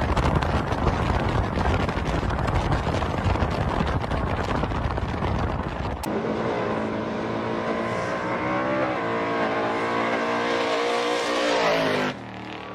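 A loud, rough rush of wind on the microphone mixed with engine rumble as cars slide on a snowy road. About six seconds in, it switches to a single car engine revving hard at high rpm, its note climbing slightly and held, then dropping away suddenly near the end.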